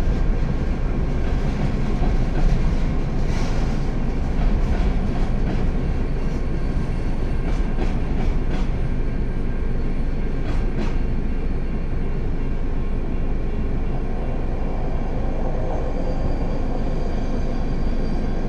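Freight train of Herzog ballast hopper cars rolling past, heard from inside a car: a steady low rumble of wheels on rail, with scattered sharp clicks in the first half that ease off as the last cars go by.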